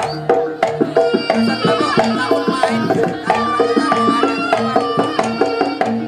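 Live Javanese jaranan ensemble music: kendang hand drums playing a fast, busy pattern over gamelan and a held melody line.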